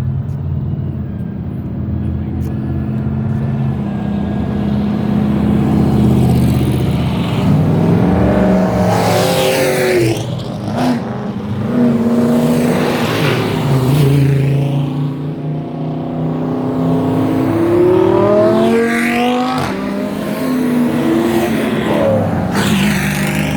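Loud cars accelerating away one after another, their engines revving with the pitch climbing as each pulls past. Three passes stand out, about 9 seconds in, near 19 seconds and near the end.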